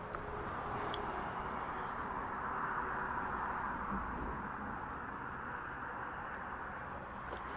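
Steady rushing hiss of road traffic on the bridge overhead, swelling gently a few seconds in, with a few faint ticks.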